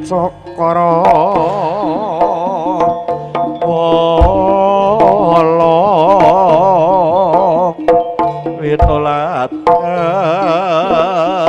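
Live Jaranan gamelan music: a sustained high lead melody with a wide wavering pitch over a busy hand-drum pattern, with deep low strokes about four seconds and nine seconds in.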